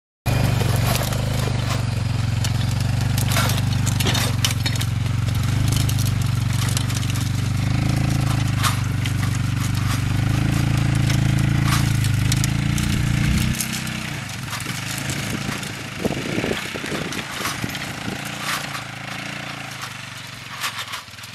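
Four-wheeler (ATV) engine running under load as it drives off the blocks and pulls a tow-behind disc harrow through brushy, stony ground, with repeated sharp knocks and clatter from the disc over branches and stones. The engine pitch rises a little, then drops sharply about thirteen seconds in, after which it runs quieter while the knocks go on.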